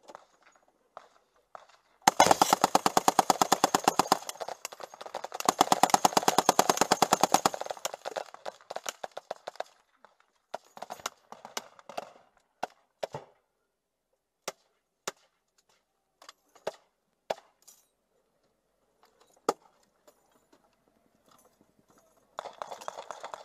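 Belt-fed machine gun firing from a vehicle turret: two long bursts of rapid fire in the first eight seconds, then scattered single shots and short bursts.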